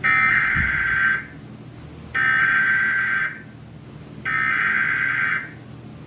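Emergency Alert System SAME header played through a TV speaker: three one-second bursts of digital data tone, about a second apart. They are the coded header that opens a severe thunderstorm warning broadcast.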